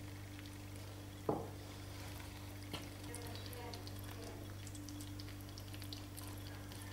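A spoon stirring a soft, wet dough mixture in a stainless steel pot, with faint squelching and small crackling ticks over a steady low hum. One sharp, louder knock comes about a second in.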